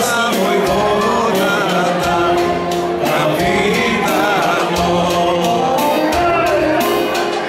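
Macedonian folk song performed live by a male singer accompanying himself on an electronic keyboard: an ornamented vocal line over sustained keyboard chords and a steady beat.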